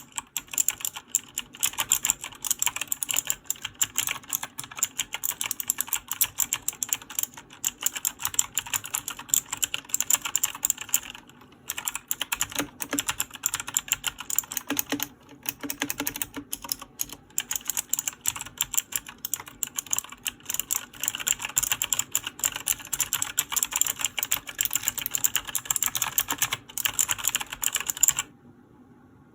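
Fast typing on a mechanical keyboard with clicky blue switches, a dense run of sharp key clicks that pauses briefly about a third of the way in and stops shortly before the end.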